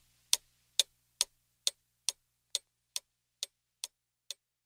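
Clock ticking steadily, a little over two ticks a second, the ticks slowly fading away.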